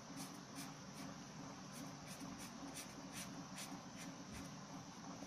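Pen scratching on paper in quick short strokes, hatching to shade in a dark patch of a drawing.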